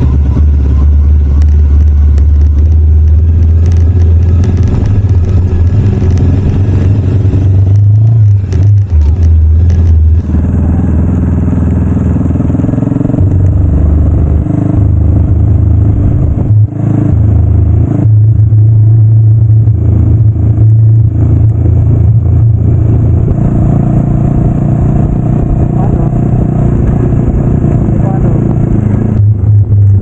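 Bajaj Dominar 400 single-cylinder motorcycle engine running under way, loud and steady, its note stepping up and down several times as the rider works the throttle and gears, with a low rumble of wind over the microphone.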